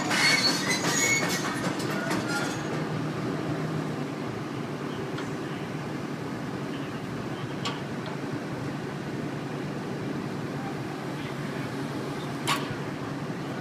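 Komatsu excavator with a pile-driving attachment running, a steady low mechanical drone. A clatter of clicks sounds in the first couple of seconds and a single sharp knock comes near the end.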